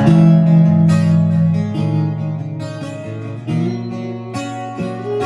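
Acoustic-electric guitar played through a PA, opening a song: chords struck and left ringing, a new chord about once a second.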